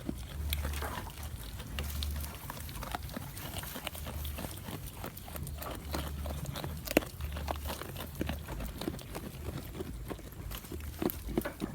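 Goat chewing and crunching its food: many short, irregular crisp crunches, with bursts of low rumble underneath.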